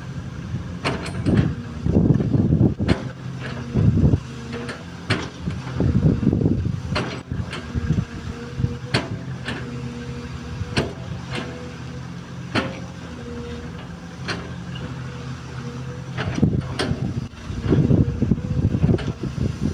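XCMG XE215C hydraulic excavator working, its diesel engine running steadily and swelling into louder rumbling surges several times. Frequent sharp knocks and clanks sound over the engine throughout.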